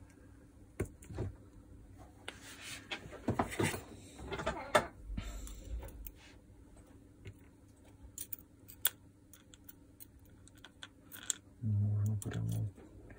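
Scattered clicks, taps and light clatter of small plastic and metal parts from a Makita DDF486 drill's planetary gearbox being handled and prodded with tweezers during disassembly, with a short low hum near the end.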